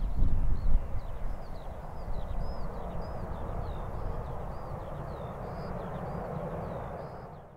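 Airbus A320 jet engines running on the runway as a steady whooshing drone, with a small bird singing rapid high chirps over it throughout. The sound fades out near the end.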